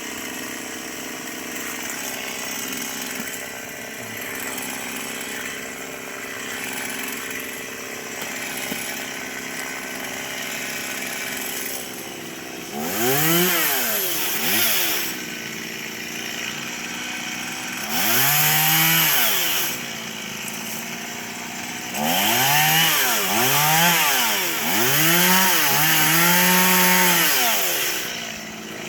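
Chainsaw idling, then revved up hard in bursts, three times, with the last burst held high for a few seconds as it cuts through tree limbs.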